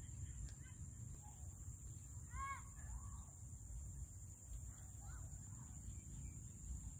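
Faint rural evening ambience: a steady high insect drone over a low rumble, with a few short bird calls, the clearest a little under halfway through.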